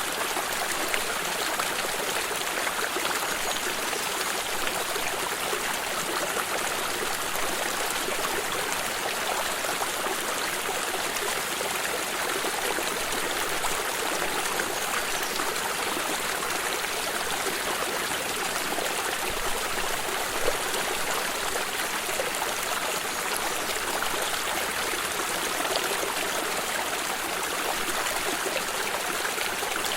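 Stream of water flowing and trickling, a steady splashing rush with no pauses.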